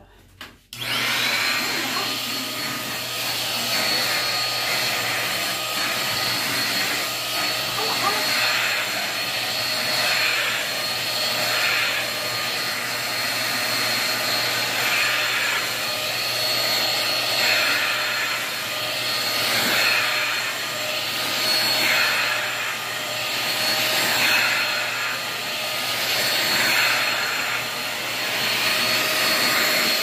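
Deerma handheld vacuum cleaner switched on just under a second in and running steadily, with a high steady whine over its suction rush. The sound swells a little every couple of seconds as the nozzle is drawn back and forth over a bed sheet.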